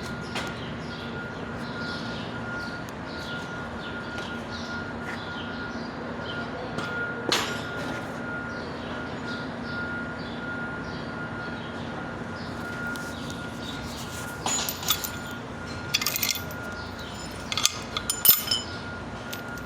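Metal pieces clinking together, handled in a workshop: a single sharp clink about seven seconds in, then a run of clinks and knocks in the last few seconds. Under them runs a steady faint hum with a constant high tone.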